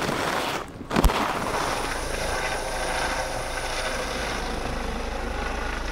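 Helicopter running steadily, a whining drone over a low hum, starting after a brief dip and a click about a second in.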